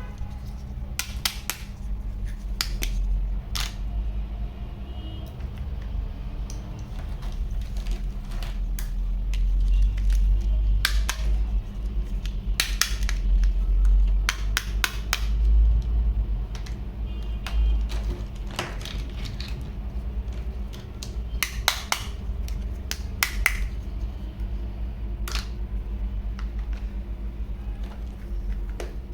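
Toys being handled, giving scattered, irregular clicks and knocks over a steady low hum.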